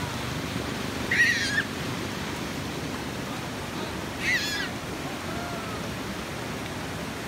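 Shallow mountain stream rushing steadily over rocks. Two brief high-pitched shrieks cut through it, about one second and about four seconds in.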